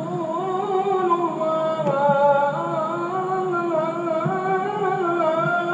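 Background music: a single voice singing long held notes that slide up and down.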